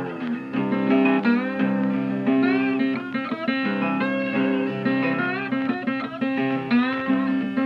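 Americana-style instrumental guitar music: a steady low bass drone under sliding, bending guitar notes.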